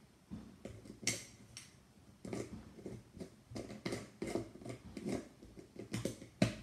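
Scattered light clicks and taps of a spoon and small containers being handled on a table, with a sharper knock about a second in and another near the end.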